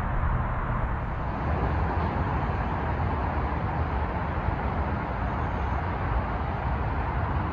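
Steady outdoor background rumble and hiss with no distinct events.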